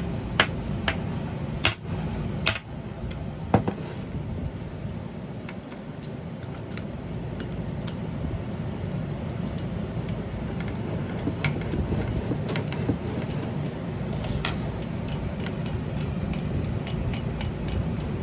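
Scattered sharp metal clicks and taps of paintball air fittings being handled and screwed together, over a steady low rumble.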